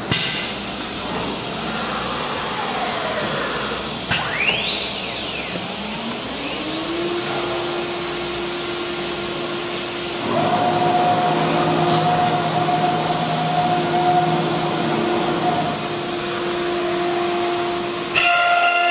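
CNC router spindle motor whining up to speed: a rising whine that levels off and holds one steady pitch, over a constant machine hiss. About ten seconds in the sound grows louder, with a second steady tone.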